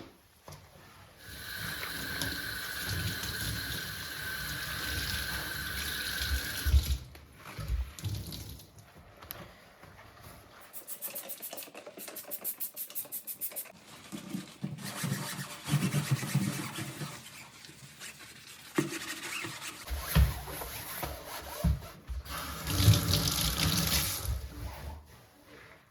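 Tap water running into a sink in two stretches, near the start and near the end, with knocks and handling sounds between them. In the middle a rapid, even ticking lasts about three seconds.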